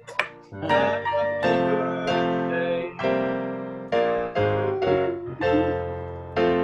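Piano playing chords, a new chord struck about once a second and left to ring and fade.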